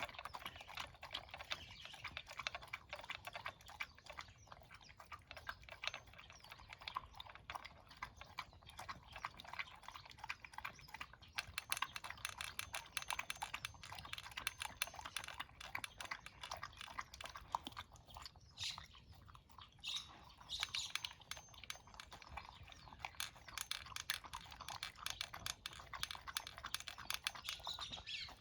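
A pet eating its breakfast, a steady run of quick, crisp crunches as it chews dry food.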